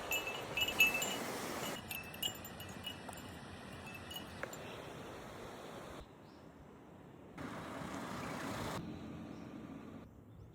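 A small bell tinkling in quick, repeated rings for about the first two seconds over a steady outdoor hiss. The background changes abruptly a few times later on.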